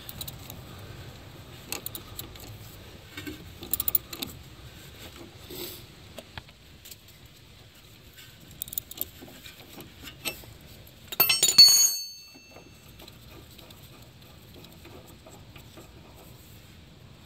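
Hand ratchet clicking in short runs as it backs off a stabilizer link's locking nut, with a wrench holding the stud. About eleven seconds in comes a loud clatter of metal tools with a brief ring.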